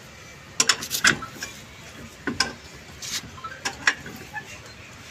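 Steel L-shaped wheel brace working a car's wheel nuts: a string of irregular metallic clicks and short scrapes as the socket meets and turns the nuts.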